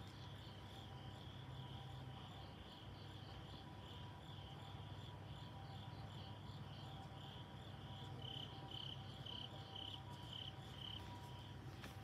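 Crickets chirping in a faint, high, steady trill that breaks into distinct pulses about twice a second near the end, over a low steady hum.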